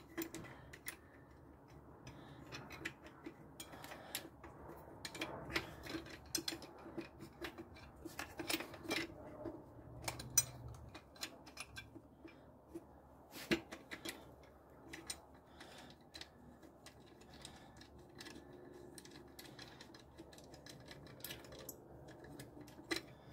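Faint metallic clicking and clinking of a hand ratchet wrench working a bolt on an alternator's belt tensioner, in short uneven runs with pauses between.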